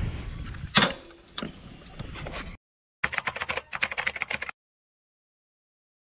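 Outdoor wind noise with a couple of sharp knocks. After a short break in the sound comes a rapid run of sharp clicks lasting about a second and a half, then the sound cuts off.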